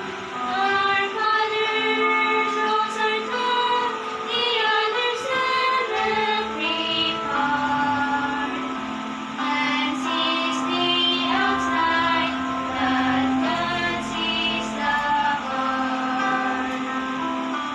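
Two young female voices singing a Christian hymn as a duet, with acoustic guitar accompaniment.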